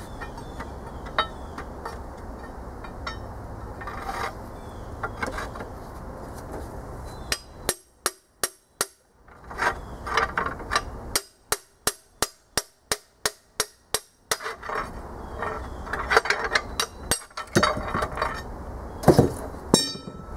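Hammer blows on a steel rod driving a seized, corrosion-bound piston out of a Chevy 305 V8 block's cylinder bore: sharp metallic strikes, scattered at first, then a fast even run of about three a second in the middle, with the hardest blows near the end as the piston comes free.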